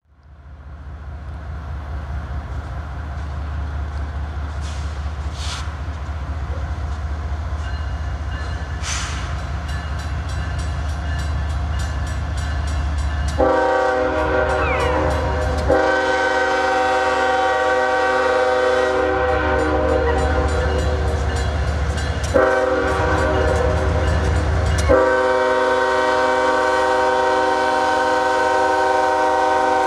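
CSX diesel locomotives of a coal train approaching, their engines rumbling low and growing louder. About halfway through, the lead unit's multi-chime air horn sounds: two long blasts, a shorter one, then a last long blast that is held on.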